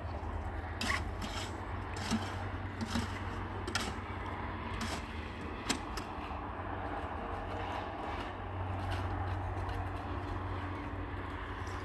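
Scattered sharp knocks and clicks, about one a second through the first half, over a steady low rumble.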